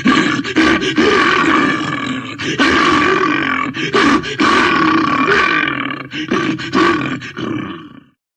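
Monster growls and roars voiced by a person as a homemade creature sound effect. They come in long sustained stretches with brief breaks and stop sharply about eight seconds in.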